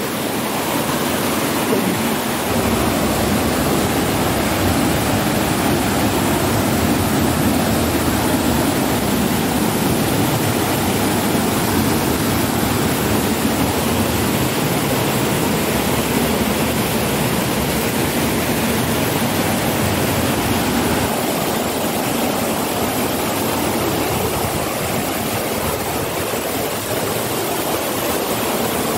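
Steady rushing of a mountain river running over rocks and through rapids.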